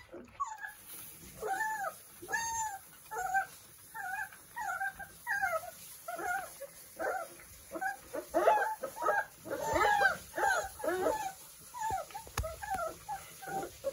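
A litter of 31-day-old Doberman puppies whining and squeaking at their food bowls: many short, high, bending calls one after another, often overlapping. There is one sharp click near the end.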